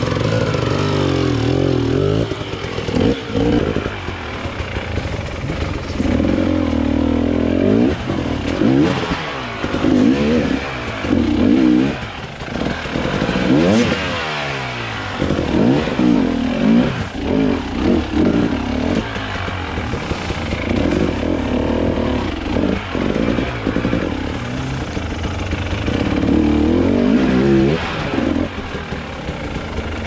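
Enduro dirt-bike engine revving up and down in repeated short bursts under load, as a rider works the bike over a rough obstacle.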